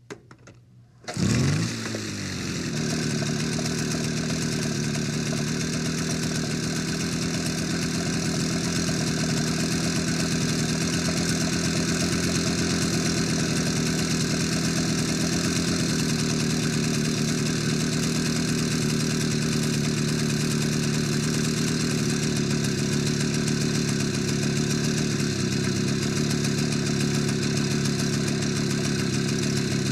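Motorcycle engine starting about a second in, with a brief burst of revs as it catches, then idling steadily.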